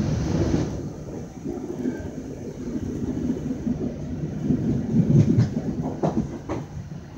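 A moving passenger train heard from inside the coach: its wheels rumble steadily on the rails, with a few sharp clicks near the end.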